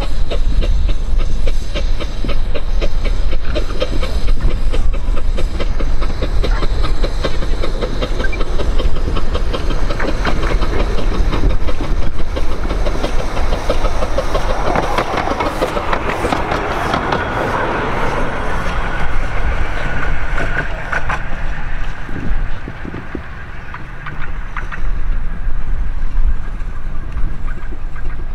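A 15-inch-gauge miniature steam locomotive and its train running along the track, its wheels clicking over the rail joints. It grows louder as it draws near, is loudest as it passes about halfway through, then fades away.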